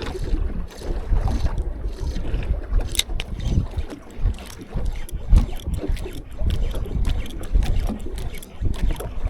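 Strong wind buffeting the microphone on a small fishing boat at sea, a gusting low rumble broken by many small irregular knocks.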